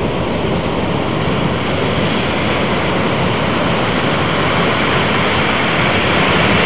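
Wind blowing across the microphone mixed with waves breaking along the shore: a steady rushing noise that grows slightly louder toward the end.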